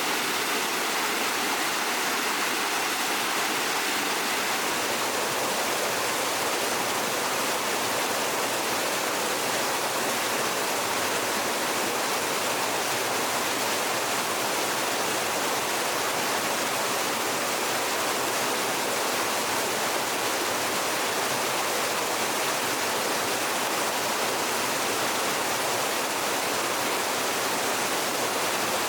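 Steady rushing of flowing water, an even hiss that does not let up.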